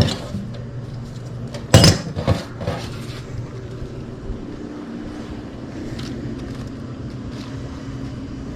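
Cookware clanking: a few sharp knocks and clinks, the loudest about two seconds in, over a steady low hum.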